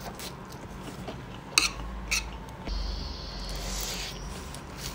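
Eating sauced instant noodles: chewing with two sharp wet mouth clicks about a second and a half in, then a long hissing slurp of noodles lasting about two seconds.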